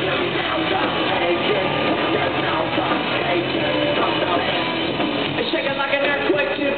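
Live rock band playing loud: electric guitar, bass guitar and drums, heard from the audience in a concert hall.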